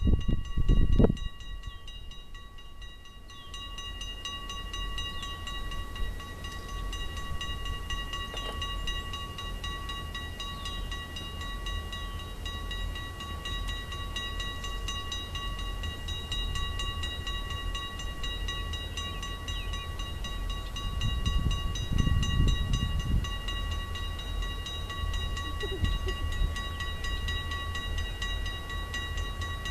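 Railroad grade-crossing bell ringing continuously with rapid strikes. Under it is a low rumble that swells in gusts about a second in and again about two-thirds of the way through.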